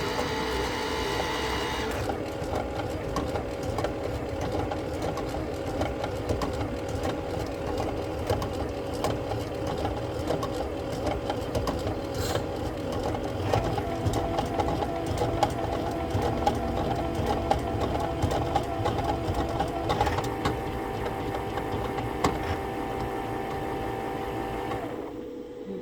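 Rotimatic NEXT automatic roti maker running loudly, its motors and mechanism giving a steady hum with a rapid rhythmic mechanical clatter. A higher whine sounds over it for the first two seconds, and the noise drops off near the end.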